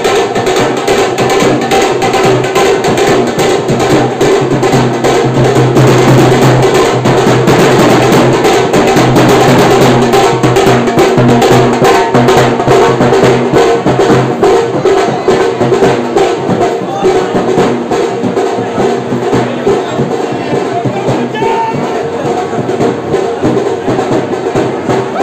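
Loud, percussion-heavy music with fast, dense drumming throughout.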